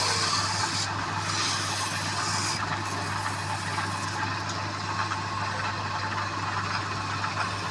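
An engine running steadily, a continuous low hum with an even mechanical noise over it.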